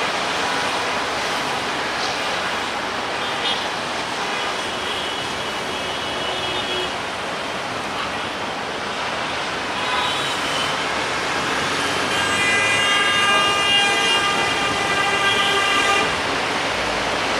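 Busy road traffic noise with vehicle horns: a steady rush of noise, a horn held for a couple of seconds about four seconds in, and a longer multi-tone horn from about twelve to sixteen seconds in.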